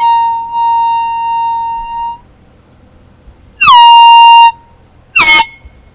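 Handheld air horn blown three times: a blast already sounding that ends about two seconds in, a louder blast of nearly a second about three and a half seconds in, and a short toot near the end. Each blast opens with a quick drop in pitch, then holds one steady tone.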